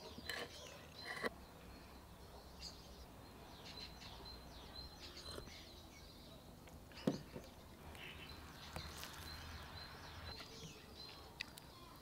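Birds chirping faintly, short high chirps repeating every second or so over a low steady hum, with one sharp knock about seven seconds in.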